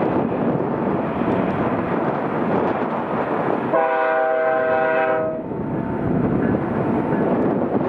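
Diesel freight train running by with a steady rumble, and one locomotive air horn blast, a chord of several steady tones, about four seconds in, lasting about a second and a half.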